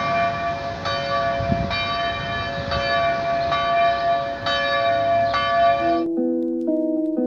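Church bell ringing with repeated strikes and a lingering hum, recorded outdoors with background noise; it cuts off about six seconds in, and soft instrumental music follows.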